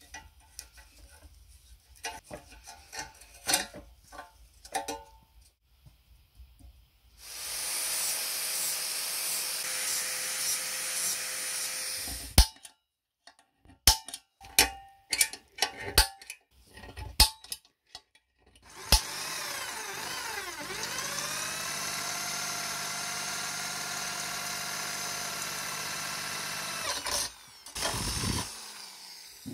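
Electric drill boring into the lamp's thin metal housing in two runs of several seconds each, its pitch sagging and recovering early in the second run, each run cutting off suddenly. Between them come clicks and knocks of tools and metal parts being handled.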